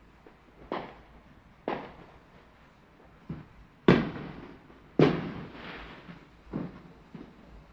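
Fireworks going off: about seven separate sharp bangs, each trailing off in an echo, the two loudest about four and five seconds in.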